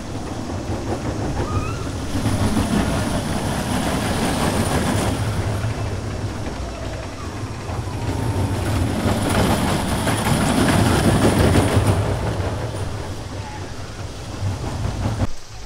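Rumble and clatter of a train of cars running on rails. It grows louder twice as the cars pass, then cuts off suddenly near the end.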